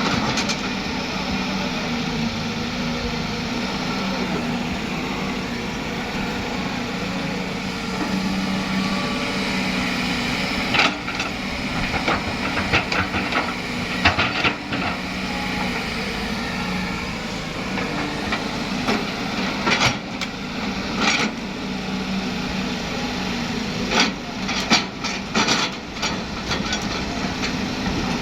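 Heavy-equipment diesel engine running steadily, with a series of sharp knocks and clatters, several in quick succession, starting about a third of the way in.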